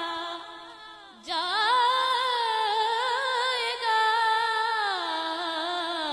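A solo singer's high voice singing a naat, drawing out long, wavering held notes through a microphone; one phrase fades out about a second in and a new phrase starts, climbs and is held.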